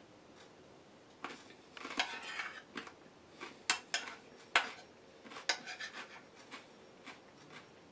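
A metal fork or spoon scraping and clinking against a dish while someone eats, starting about a second in, with a few sharp clinks in the middle that are the loudest sounds.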